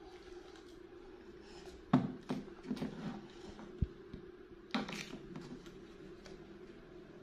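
Plastic yogurt cups clattering and knocking on a tabletop as they are handled and stacked, in a cluster of knocks about two to three seconds in, a single low thump just after, and another cluster near five seconds, over a steady background hum.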